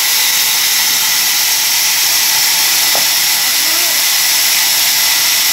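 Large vertical band saw running and cutting through mango wood, a steady high hiss.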